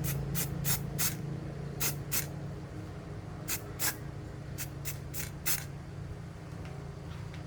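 About a dozen short, sharp spray hisses at irregular intervals, mostly in the first five and a half seconds, over a low steady hum that fades away early on.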